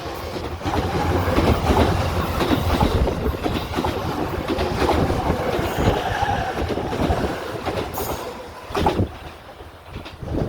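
Electric train passing close by, its wheels clattering over the rail joints, dying away near the end.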